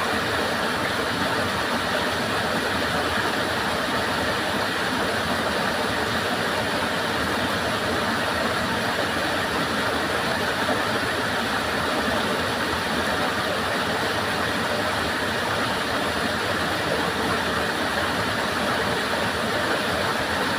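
A stream flowing: a steady, unbroken rush of running water.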